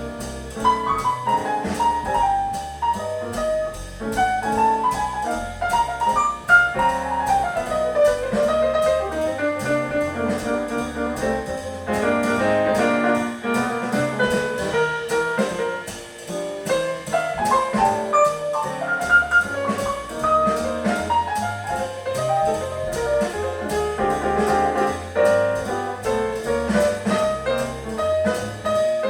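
Jazz record played on an Acoustic Signature Tornado Neo turntable through Raidho 1.6X loudspeakers: a melody line over piano, bass and drums, playing continuously.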